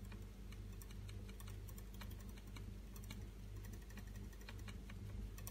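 A paint-loaded sponge dabbed repeatedly against a canvas board, making faint, quick, irregular taps, over a steady low hum.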